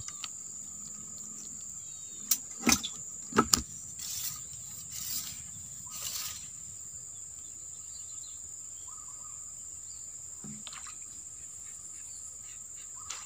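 Insects in a swamp droning steadily in one high, continuous note, with a cluster of sharp clicks and knocks about two to three and a half seconds in and a few brief swishing rustles just after.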